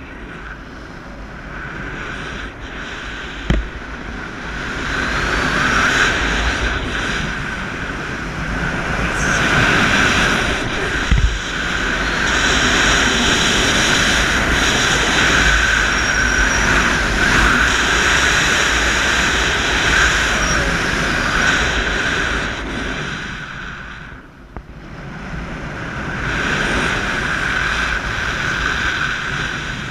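Wind rushing over the camera microphone in flight under a tandem paraglider, swelling and easing as airspeed changes, with a brief drop about three-quarters of the way through. Two short low knocks sound early on and about eleven seconds in.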